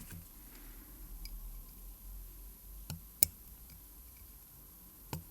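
Four sharp small metal clicks in two pairs, the loudest a little past halfway, from watchmaker's hand tools working at the cannon pinion of an Omega calibre 565 movement. The pinion is seized with rust and does not come off.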